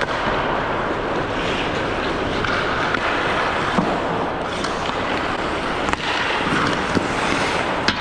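Ice hockey rink during play: a steady scraping hiss of skates on the ice, with a few sharp clacks of sticks and puck.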